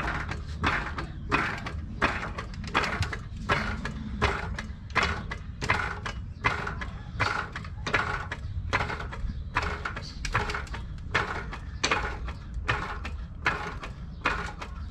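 Hydraulic floor jack being pumped in a steady rhythm, about three strokes every two seconds, lifting the rear axle toward full bump to check sway-bar clearance.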